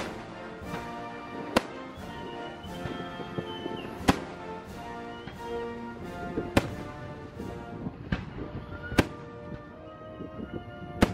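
Aerial fireworks shells bursting overhead, a sharp bang about every two and a half seconds with fainter pops between, over band music.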